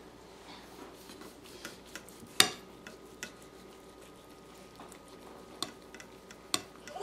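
Kitchen knife carving a crispy-skinned roast duck on a ceramic plate: scattered small clicks and taps as the blade cuts the skin and touches the plate, with one sharper click about two and a half seconds in.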